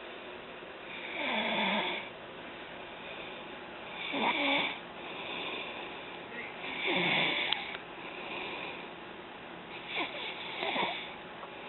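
A sleeping person snoring: four snores about three seconds apart, each sliding in pitch.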